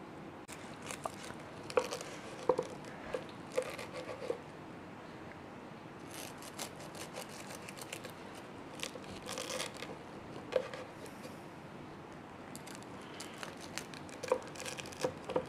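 Knife slicing through the crisp, fried shredded crust of a stuffed chicken roll on a wooden cutting board: quiet crunching and crackling, with scattered light taps of the blade on the board.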